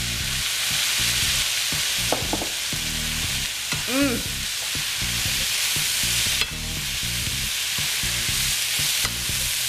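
Chicken, onions and soy and fish sauce sizzling steadily in a hot frying pan as they are stirred.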